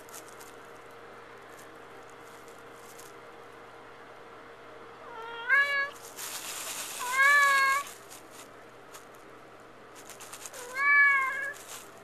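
Domestic cat meowing three times, each call rising then levelling off: a shut-in cat crying to be let out. A loud burst of harsh noise sounds between the first two meows.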